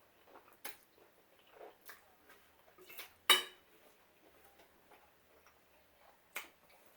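Eating sounds: a handful of short, sharp clicks and taps of utensils and mouth, the loudest a little past three seconds in.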